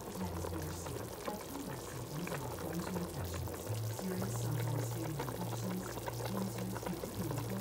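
A pot of chicken soup at a rolling boil, bubbling steadily with a dense crackle of bursting bubbles. Low background music notes change in pitch underneath.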